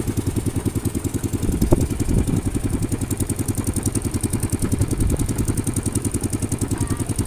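Small boat's motor running steadily under way, with a fast, even pulse, and a couple of low thumps about two and five seconds in.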